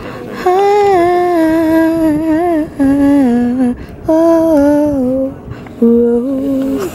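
A woman humming a slow wordless tune: four phrases of long held notes that glide between pitches, with short breaks between them.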